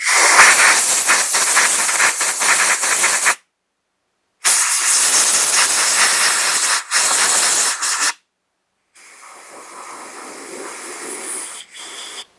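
Compressed-air blow gun hissing in three long blasts as air is blown through and across small-engine carburetor parts. The first two blasts are loud; the third is quieter.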